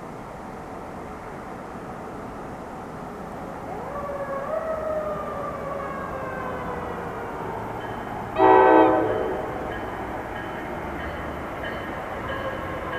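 A fire truck siren wails, winding up about four seconds in and then slowly falling. A little past halfway, an approaching NJ Transit train gives one short horn blast, the loudest sound.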